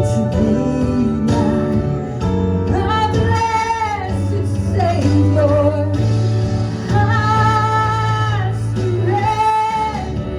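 A woman singing a gospel song over instrumental accompaniment, holding long notes with vibrato.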